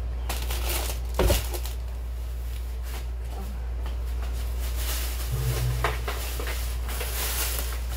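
Groceries being handled on a stone counter: plastic packaging rustling, with a sharp thump about a second in as an item is set down and a few lighter knocks after it, over a steady low hum.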